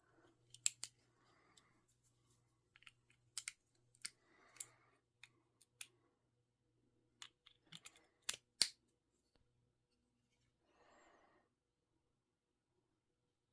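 Small hard-plastic clicks and taps from Beyblade X parts (blade, ratchet and bit) being handled and fitted together, irregular and spaced out, with brief soft rustles of handling between them. The loudest are two sharp clicks about eight and a half seconds in.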